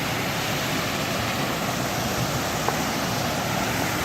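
Steady rush of a waterfall, an even wash of falling water, with one faint click a little past halfway.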